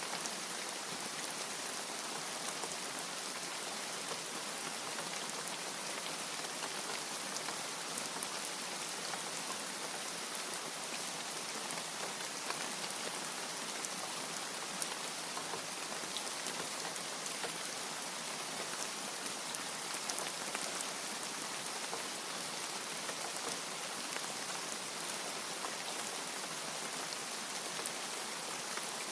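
Steady rain falling, with sharp ticks of single drops scattered through it and no thunder.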